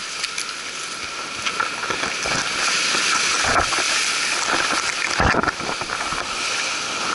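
Surf breaking and washing over jetty rocks: a steady hiss of foaming white water, with two louder low thumps about three and a half and five seconds in.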